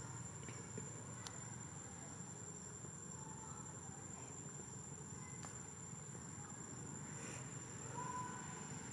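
Steady high-pitched insect drone from the forest canopy, with a few faint clicks and a brief chirp about eight seconds in.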